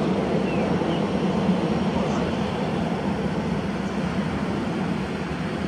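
Jet engines of a Boeing 737 airliner on final approach with landing gear down, a steady low drone heard from the ground.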